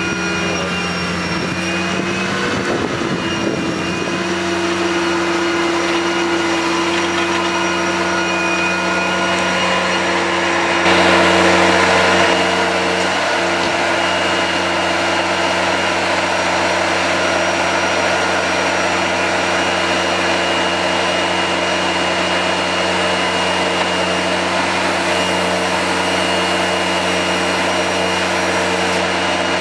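Propane-fuelled engine of an Advance Tiger Cat ride-on sweeper running steadily, a low hum with a thin high whine over it. About eleven seconds in it gets louder and noisier, then settles back a little.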